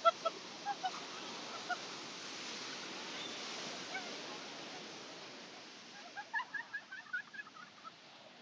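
Surf breaking and washing up the beach: a steady rush. A few short, high calls come near the start, and a quick run of about ten more comes around six to seven and a half seconds in.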